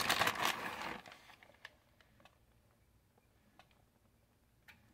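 A burst of rustling in the first second as a handful of shredded mozzarella is grabbed and sprinkled by hand onto the pizza crust, then only faint scattered ticks.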